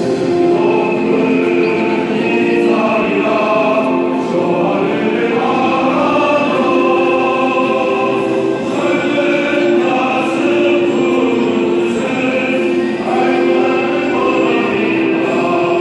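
A large group of students and teachers singing a song together, mostly in long held notes.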